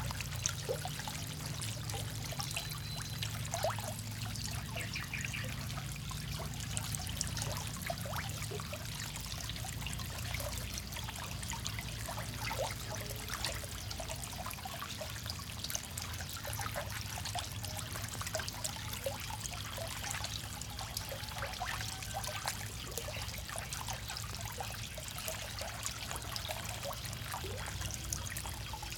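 Many farmed frogs feeding on floating pellets in shallow water: a dense, irregular patter of small splashes and snaps, with a low steady hum underneath.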